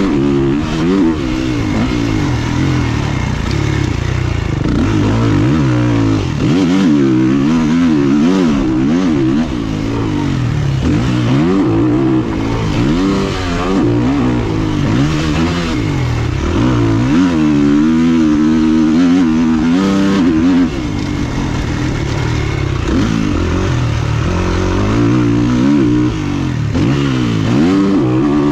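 Two-stroke motocross bike engine heard from a helmet camera, revving up and down over and over as the rider works the throttle and shifts around the track, with a long high-revving stretch a little past the middle.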